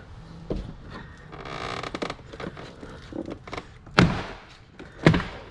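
Hand work on a car door's interior trim panel: a short rasp about a second and a half in, then two sharp knocks about a second apart.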